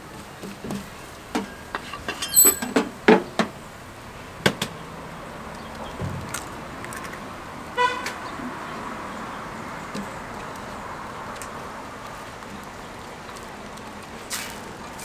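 Jianbing being cooked on a round griddle: a wooden scraper taps and knocks on the cooking surface, with a run of sharp knocks in the first few seconds over a steady hiss. About eight seconds in, a vehicle horn toots once, briefly.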